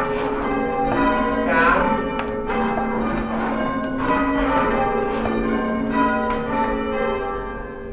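Church bells rung in changes: a rapid, even run of overlapping bell strikes, each ringing on, which begins to die away near the end.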